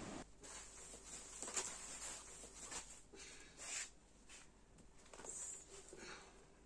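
Faint, irregular rustling and soft knocks of sacks and plastic bags being handled and shifted about.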